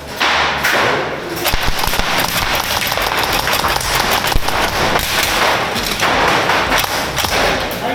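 Airsoft guns firing: a dense, irregular run of sharp clicks and thuds that starts about a second and a half in.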